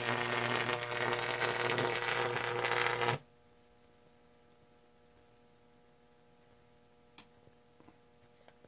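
High-voltage arc of a homemade Jacob's ladder buzzing loudly with a crackling hiss. It cuts off suddenly about three seconds in as the power is switched off, leaving a faint steady hum and one small click near the end.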